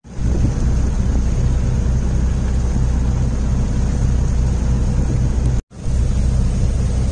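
Fishing boat's engine running with a steady low rumble, mixed with wind on the microphone and sea wash. The sound cuts out for a moment about five and a half seconds in, then resumes.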